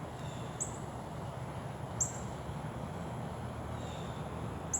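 Sharp, high chip notes from a small songbird, three of them a second or two apart, over a steady low background rumble.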